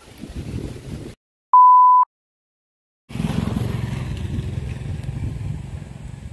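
A single loud electronic beep, one steady tone about half a second long, set in a two-second stretch of dead silence. A steady low rumble runs before and after the silence.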